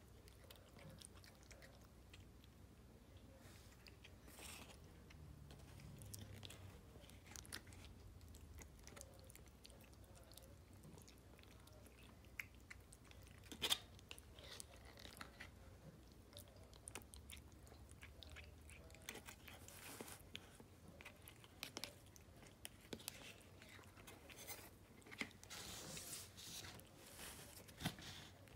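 Siamese cat eating soft wet cat food off a plastic spoon: faint chewing, with a few sharp clicks scattered through, one louder a little before halfway.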